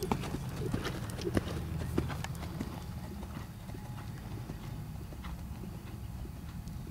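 Hoofbeats of a Thoroughbred gelding moving under saddle, sharp and close for the first couple of seconds, then softer and sparser as the horse moves away, over a steady low rumble.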